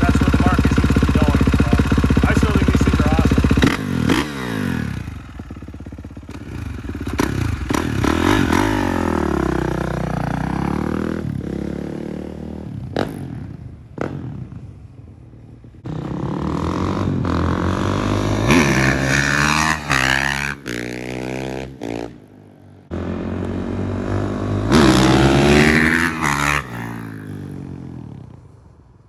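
2019 Kawasaki KX450's single-cylinder four-stroke dirt bike engine running loud and steady close by for the first few seconds, then revving up and down through the gears as the bike rides off and comes back past several times.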